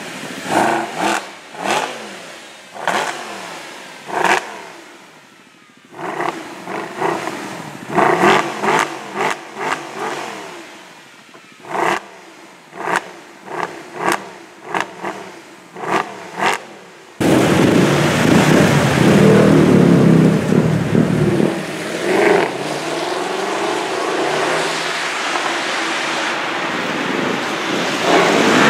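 Mercedes SLS AMG's 6.2-litre V8 revved hard while standing: a long series of sharp throttle blips, each falling away quickly, with a short lull a few seconds in. About seventeen seconds in it switches to a long, loud, sustained full-throttle run as the car accelerates away.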